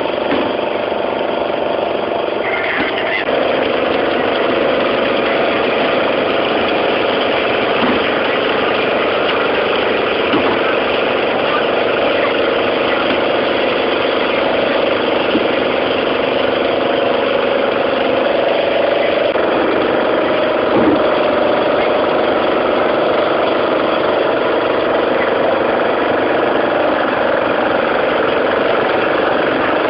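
Fishing boat's engine running steadily, with a few faint knocks over the drone.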